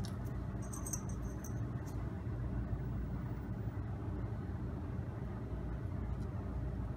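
Steady low machine hum, with a few faint light ticks as a small plastic tube and an agar plate are handled.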